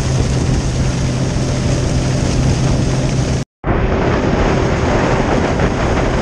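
Ankona Native flats skiff running at speed under outboard power: a steady engine tone under loud wind rush on the microphone and water hissing along the hull. The sound cuts out for a moment about three and a half seconds in, then returns with a higher steady engine tone.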